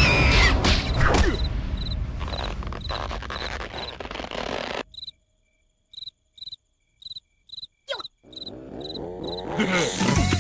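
Cartoon cricket chirps, short and high, about two a second, heard plainly once a loud noisy burst cuts off suddenly about five seconds in. Near the end a swooping, rising sound effect builds up.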